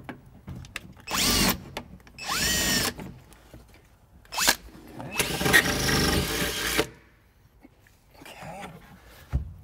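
Cordless drill running in three bursts, the last and longest lasting about a second and a half, its whine rising as it spins up. It is drilling the mounting holes for a throttle pedal through a truck's sheet-metal firewall.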